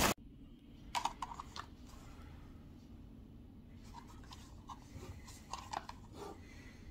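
Faint scattered taps and rustles of a hand gripping and turning a cardboard ice cream tub, in small clusters about a second in and again around four and six seconds, over a low room hum.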